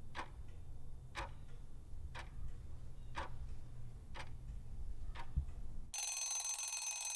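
Countdown-timer clock ticking sound effect, one tick a second over a low hum. About six seconds in the ticking stops and a bright, steady ringing sound takes over as the countdown nears its end.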